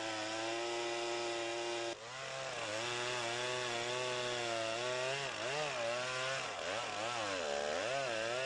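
Long-bar chainsaw cutting into the base of a large tree trunk, its engine running at high speed. There is a brief break about two seconds in. In the second half the pitch dips and recovers several times as the saw bogs under load in the cut.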